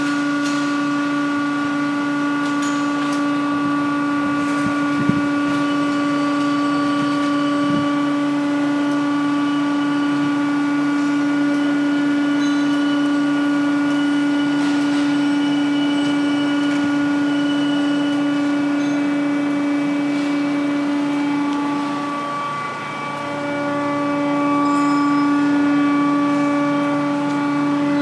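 Rotary draw tube bending machine running while it bends 4" x 4" steel tube, giving a steady pitched hum. The hum sags briefly about 22 seconds in, then comes back, with a couple of faint clicks earlier on.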